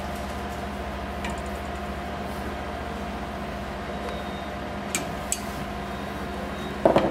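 Steady machine hum, with a few faint small clicks while a T-handle hex screwdriver tightens a calibration screw on a 3D printer's build plate, and a short knock near the end.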